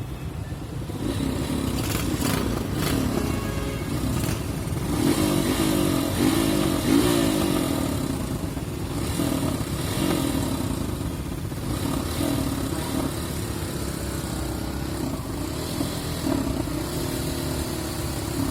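A 153cc motorcycle engine running, its pitch rising and falling repeatedly with the throttle.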